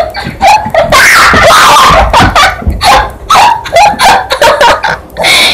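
Children coughing harshly and shrieking with laughter, loud enough to overload the microphone, set off by a spoonful of dry ground cinnamon in the mouth.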